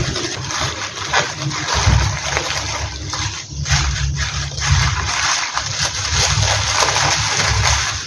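Tissue paper rustling and crinkling as it is scrunched and folded by hand. Under it runs a gusting low rumble of wind on the microphone.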